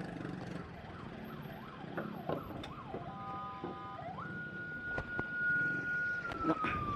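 Ambulance siren sounding in traffic: faint quick yelping sweeps at first, then about four seconds in a long wail that rises, holds and slowly falls near the end. A motorcycle engine runs low underneath.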